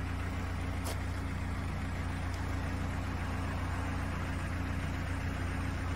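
A vehicle engine idling steadily, a low even hum, with one short click about a second in.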